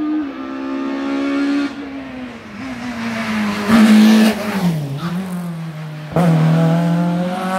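Racing car engine passing at full voice on a hill-climb course. The engine note falls as the car slows through the bend and is loudest as it goes by. About six seconds in, a loud steady engine note comes in abruptly.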